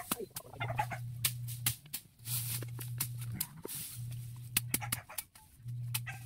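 Bolo knife chopping through tall grass stalks: sharp cuts in quick, uneven succession. Under them a low hum switches on and off every second and a half or so, and a short falling animal call sounds right at the start.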